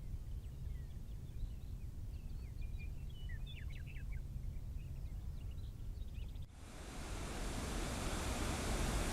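Birds chirping over a low wind rumble, then an abrupt cut about six and a half seconds in to the loud, steady rush of a waterfall.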